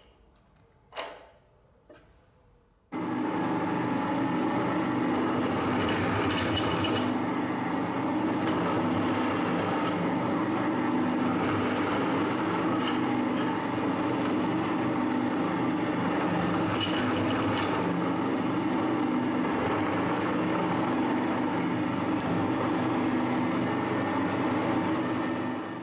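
A click, then about three seconds in a pillar drill starts and runs steadily with a countersink cutting into the bolt holes of steel brake caliper carriers, the cutting noise rising now and then.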